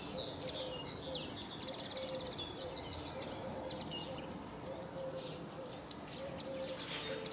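Birds singing outdoors: short high chirps and trills from small birds, over a lower call that repeats in short dashes every half second or so.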